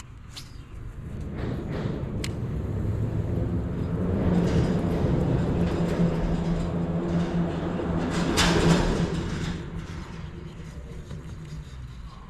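A motor vehicle passing by, its engine hum growing louder over several seconds to a peak about eight and a half seconds in, then fading away.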